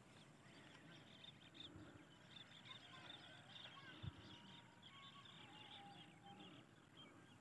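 Faint chorus of many small birds chirping and twittering in the open, with a few thin held whistles in the middle. A brief low thump about four seconds in.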